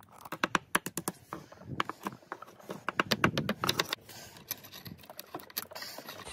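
Steel chisel and scraper prying and knocking at a cured epoxy resin slab to free it from its taped mould: a rapid, irregular run of sharp clicks and knocks.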